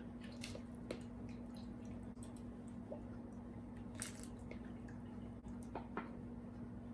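Faint kitchen handling sounds as dressing ingredients are prepared: scattered light clicks and soft wet squishes, over a steady low hum.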